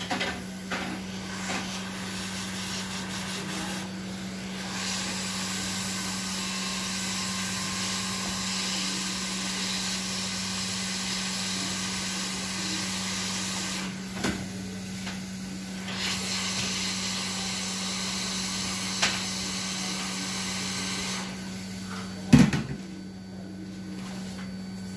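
Hot-air rework gun blowing a steady hiss over the circuit board while a MOSFET is reflowed into place, with a steady low hum underneath. The air noise dips briefly around the middle, stops near the end, and is followed by one sharp knock.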